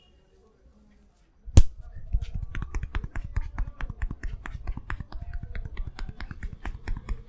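A single sharp snap about a second and a half in, then a fast, continuous run of hand strikes: a barber's hands tapping and slapping in a head massage.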